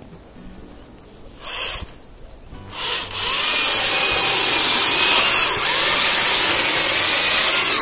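Stihl MSA 161 T battery top-handle chainsaw run in two short bursts, then cutting through a small branch for about five seconds, a loud steady hiss of the small-pitch chain in the wood.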